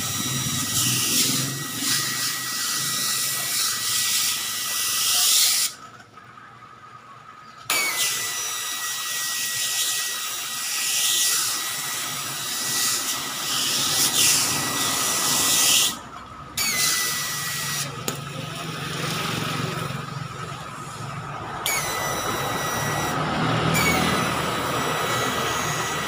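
Water jetting from a pistol-grip hose spray gun onto and through a car air-conditioning evaporator coil as it is rinsed clean: a steady hiss with a thin whistle. The spray cuts off for about two seconds some six seconds in and again briefly near sixteen seconds, then resumes.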